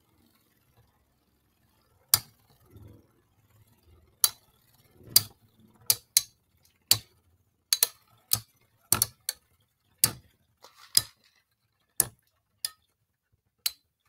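Two Beyblade spinning tops, L-Drago and Gasher, knocking into each other as they spin in a plastic stadium: sharp clicks at an uneven pace, starting about two seconds in and coming roughly once or twice a second.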